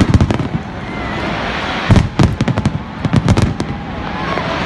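Aerial firework shells bursting overhead in rapid volleys of sharp bangs: one volley at the start, another about two seconds in, and a third just after three seconds, over a steady background din.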